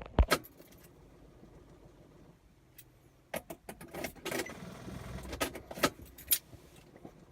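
A sharp knock near the start, then keys jangling with a run of clicks and rattles a few seconds in.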